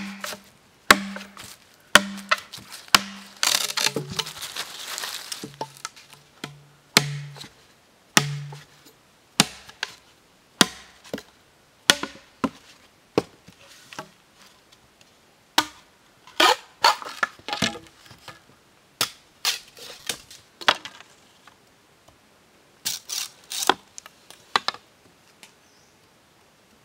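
Machete chopping into a green bamboo pole: sharp strikes about once a second, each ringing with a short low note that drops lower about four seconds in. Irregular clusters of cracks and knocks follow as the blade splits and trims the bamboo.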